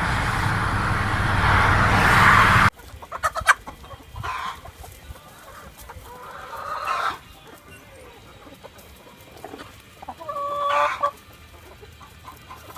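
Rhode Island Red chickens clucking and calling, with a held, crow-like call about ten seconds in. The first couple of seconds are a loud, even rush of noise that cuts off abruptly.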